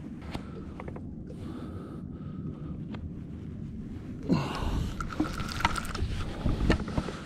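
Steady low wind rumble on the microphone, then from about four seconds in, irregular knocks and rustling from handling of the fishing rod, spinning reel and camera while a fish is being played.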